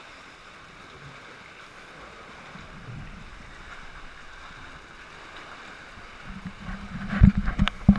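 Sea swell sloshing and lapping inside a rock sea cave around a canoe. From about six seconds in the water grows rougher, with several loud slapping thumps of waves against the boat and rock near the end.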